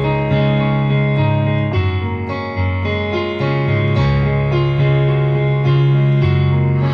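Electric piano or keyboard playing sustained chords in an instrumental passage of a slow worship song, the chords changing every second or so.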